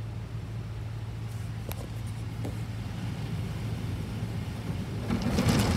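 Ryko automatic car wash heard from inside the car: a steady low hum with water running over the glass. About five seconds in, a louder rushing, scrubbing noise sets in as the wash's cloth brushes reach the car.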